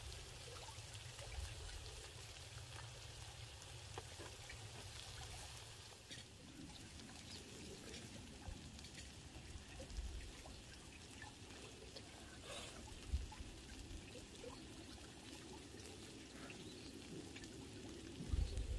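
Pork sizzling on a hot gopdol stone griddle slab heated by a wood fire: a faint, steady sizzle with scattered small pops and crackles.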